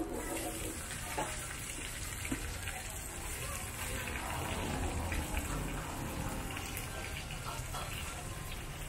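Rice noodles sizzling in a steel wok over a burner, a steady hiss over a low rumble, with a few light knocks of the metal ladle against the wok.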